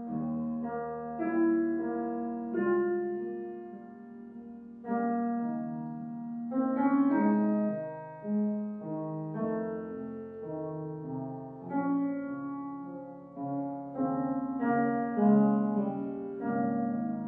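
Piano background music: notes and chords struck one after another and left to ring out.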